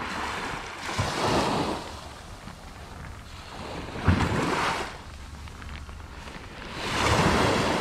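Sea waves breaking onto a sandy beach three times, about three seconds apart, each swelling up and washing back, with wind buffeting the microphone.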